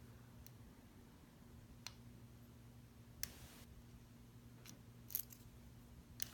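Faint, scattered metallic clicks of a lock pick and tension wrench working the pin stack of an American Lock 1205 padlock, about six over several seconds, with a steady low hum underneath.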